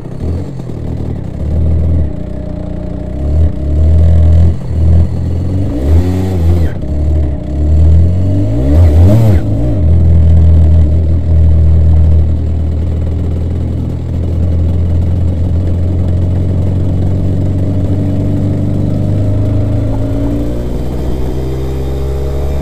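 250cc twin-cylinder two-stroke superkart engine revved in short bursts as the kart pulls away, then running steadily at low speed, with the pitch rising near the end as it accelerates.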